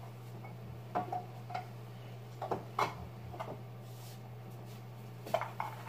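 Empty tin dip cans being handled and stacked, giving a handful of scattered light clicks and clinks, the sharpest cluster near the end, over a steady low hum.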